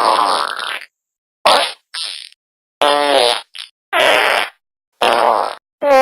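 A rapid string of about eight separate fart sounds, each under a second long. Some are raspy, others (about three seconds in and near the end) have a clear pitched tone that dips.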